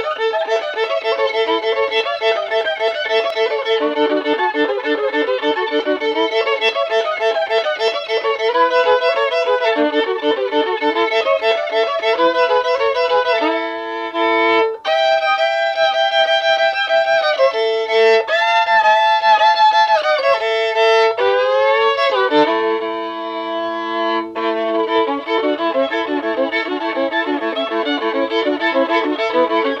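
Solo fiddle playing a hillbilly-style tune: a fast, repeated sawing figure over a steady drone string. About halfway through it breaks into long held notes with sliding pitch bends, then returns to the sawing figure near the end.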